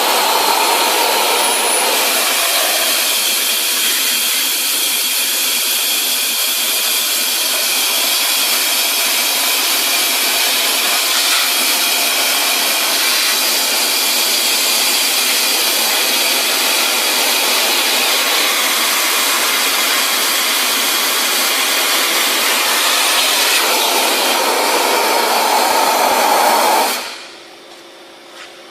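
Compressed-air wet/dry vacuum cleaner running with a loud, steady hiss, then shutting off suddenly shortly before the end.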